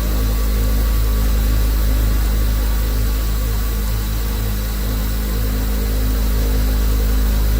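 Horizontal foam-cutting machine running steadily with a constant low hum and hiss as it slices a foam block into sheets.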